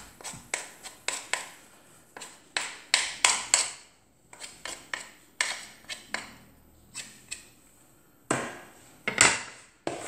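Wooden and metal spoons scraping and knocking in a plastic mixing bowl in short, uneven strokes, with brief pauses, as the last dry flour is gathered into a shaggy bread dough.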